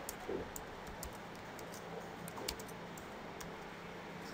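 Computer keyboard being typed on: light key clicks at an irregular pace, in short runs with gaps between.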